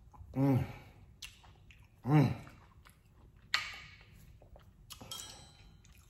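A man eating makes two short hummed "mm" sounds of enjoyment, each rising then falling in pitch, with a sharp click and a breath after them. Near the end a knife and fork clink and scrape on a ceramic plate as he cuts his food.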